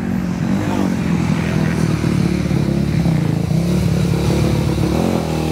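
Motocross bike engine running and revving, its pitch rising and falling.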